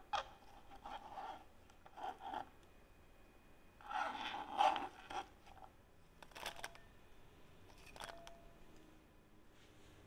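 Kitchen knife cutting through cucumber strips on a cutting board: a series of short, crisp crunching cuts, the loudest run about four seconds in, followed by a couple of light clicks.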